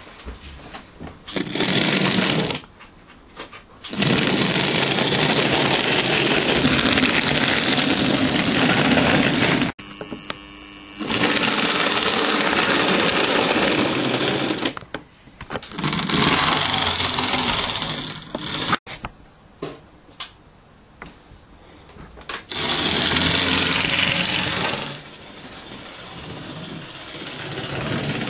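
Model J50 tank locomotive's small electric motor whirring, with its wheels rumbling on the rails, in several loud runs that start and stop with quieter gaps between.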